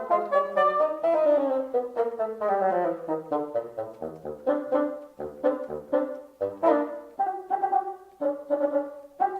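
Background music played on brass instruments: a melody that steps downward over the first few seconds, then short, separate chords.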